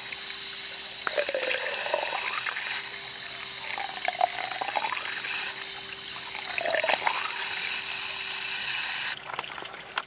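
Water from a hose pouring into a boat's deck fill and the freshwater tank below, gurgling in recurring rises and falls as the tank nears full. The flow stops suddenly about nine seconds in.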